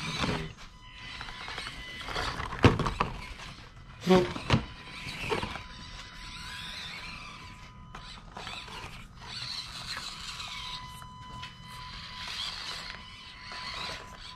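Axial SCX24 micro crawlers' small electric motors and gears whining, the pitch rising and falling with the throttle. A few sharp knocks come between about two and a half and five and a half seconds in, the loudest about four seconds in.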